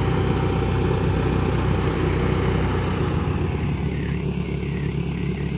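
A vehicle engine running with a steady low hum that fades away over the last couple of seconds.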